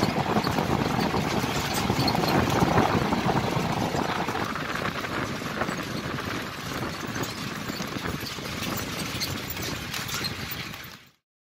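Safari vehicle driving on a dirt track, its engine and road noise heard from inside the open-topped cab as a steady rumble. The sound cuts off abruptly near the end.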